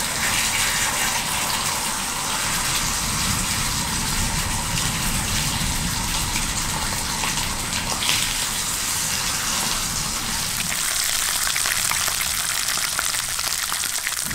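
Sliced meat sizzling in oil in a frying pan over a small gas canister stove: a steady hiss with fine crackling.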